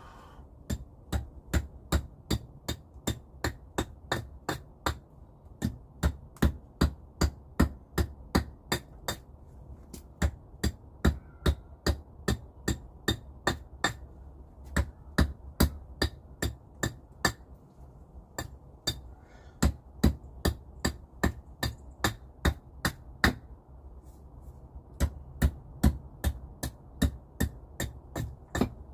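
Rapid hammering strikes, about three a second, in runs of several seconds broken by short pauses.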